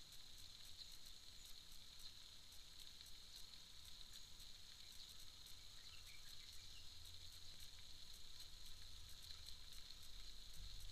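Faint outdoor ambience: a steady high insect drone, like cicadas or crickets, over a low wind rumble.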